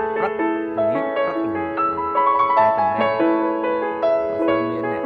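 Background music: a keyboard melody of held notes changing in steps.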